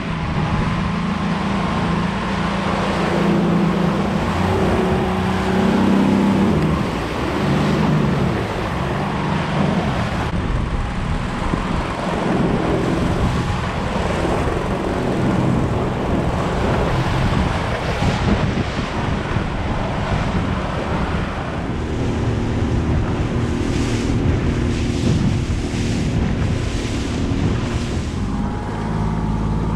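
A tinny's outboard motor running under way through choppy swells, its note rising and falling, mixed with wind buffeting the microphone and water rushing and splashing against the aluminium hull.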